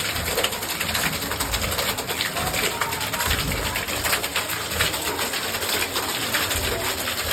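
Hand-played slime being squeezed and stretched, making a dense run of small crackling clicks and squelches.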